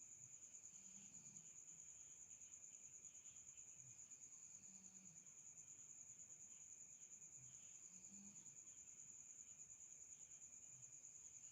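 Faint, continuous high-pitched insect trill with a rapid, even pulse that never breaks.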